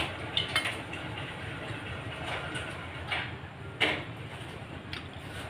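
Eating by hand from a steel plate: fingers picking through fried fish and rice, with chewing and a few sharp clicks and clinks, the loudest right at the start and just before four seconds in. A steady low hum runs underneath.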